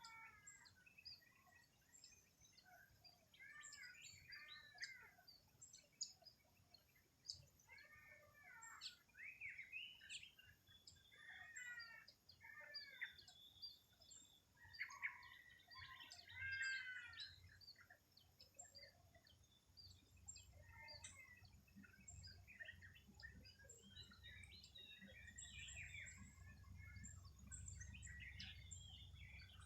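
Several birds calling and singing in a faint morning chorus: many short chirps and whistled phrases overlapping one another. A faint low rumble joins in about two-thirds of the way through.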